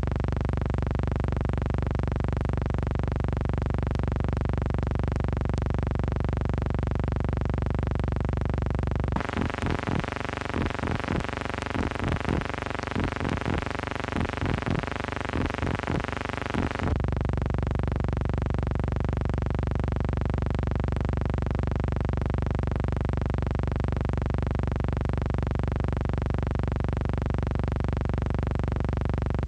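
Background music: a steady synthesizer drone, with a run of quick repeated notes laid over it from about nine seconds in for some eight seconds.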